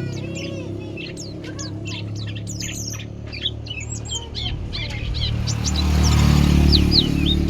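White-eye (pleci) song: a rapid, dense run of high chirps and short falling whistles, as used in a tutor ('masteran') recording for training captive white-eyes. A steady low hum runs beneath it and swells louder with a hiss about six seconds in.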